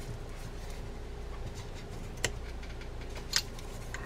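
Faint ticking and two sharp clicks, about two seconds in and again a second later, as small metal parts are fitted by hand onto a Shimano TLD25 lever-drag fishing reel, over a low steady hum.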